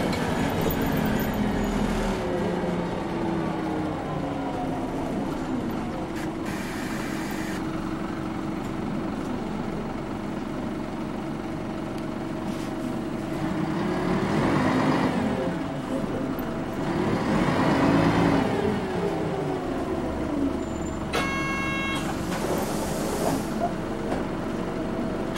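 Nissan Diesel Space Runner city bus heard from inside the cabin. The diesel engine winds down over the first few seconds and runs steadily, then revs up and falls back twice around the middle as the bus pulls away through the gears. A short electronic chime sounds about 21 seconds in.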